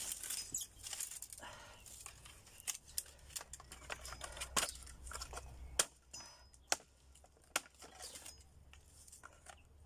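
Machete chopping small branches into firewood on a wooden chopping block: a series of sharp, irregularly spaced chops, with dry twigs and leaves rustling between them.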